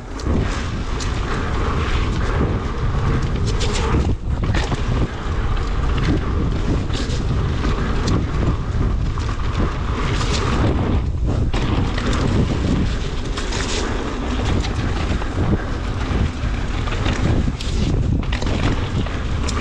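Wind buffeting the action camera's microphone as a mountain bike rolls fast over a dirt trail, with tyre noise and frequent small knocks and rattles from the bike over bumps.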